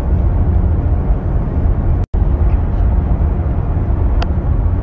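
Steady low rumble of a car's tyres and engine heard from inside the cabin while driving on a paved road. The sound cuts out for an instant about two seconds in, and there is one short tick near the end.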